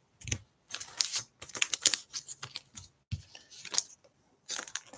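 A string of short, irregular clicks and light rustles, coming in quick clusters with brief gaps: small objects being handled.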